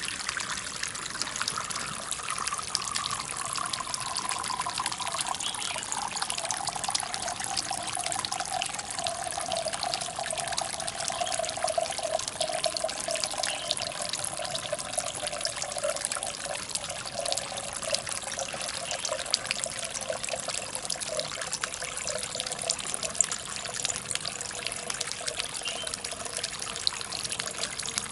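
Water running through a stoneware-jar fountain, trickling and splashing steadily into a small pond with many small droplet splashes. A tone slowly falls in pitch over the first half and then holds steady.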